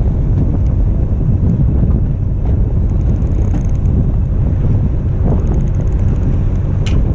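Strong wind buffeting the microphone on a boat at sea. Two runs of fast, high ticking from the fishing reel come through it, about three seconds in and again around five to six seconds, as a fish bites. A single sharp click follows near the end.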